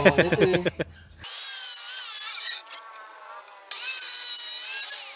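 Powerhouse abrasive cut-off saw grinding through steel bar: a loud, high, wavering screech that sets in about a second in, drops away for about a second in the middle, then comes back loud as the wheel bites again.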